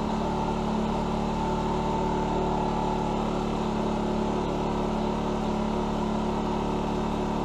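Small Sportsman inverter generator's gasoline engine running steadily just after starting, an even hum at a constant pitch.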